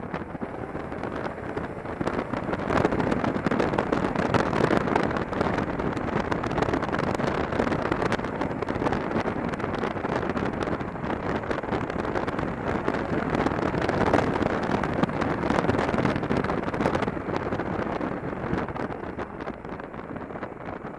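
Motorcycle riding along at moderate speed, heard through a helmet-mounted camera: the engine's running sound blends with wind rushing over the microphone as a steady noise. It drops a little near the end.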